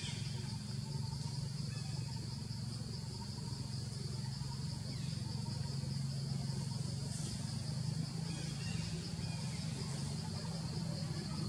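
Steady high-pitched insect chorus, a pulsing drone, over a low steady hum.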